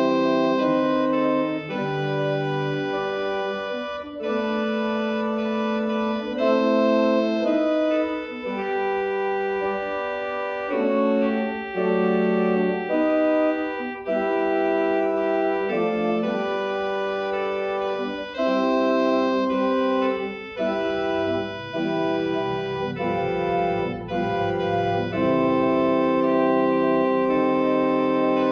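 Church organ playing a hymn arrangement in sustained chords, the held notes changing every second or two with brief breaks between phrases. Deeper pedal bass notes come in about two-thirds of the way through.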